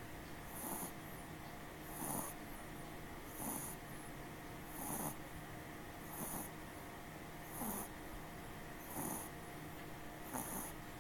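A sleeping pet snoring softly and evenly, one short snore about every second and a half, each dropping in pitch.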